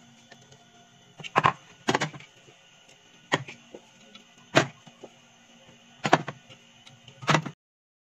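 Aluminium soda cans set one by one onto a plastic refrigerator door shelf: about six sharp knocks, spaced irregularly a second or so apart. The sound cuts off suddenly near the end.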